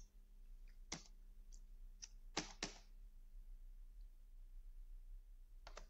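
Near-silent room tone with a faint steady hum, broken by a few faint sharp clicks from a computer mouse: one about a second in, a pair a little after two seconds, and two close together near the end.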